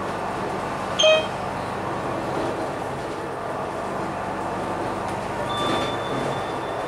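Cabin noise of a Volvo B9TL double-decker bus on the move: steady engine and road noise heard from inside. A short, loud beep about a second in, and a faint high tone comes in near the end.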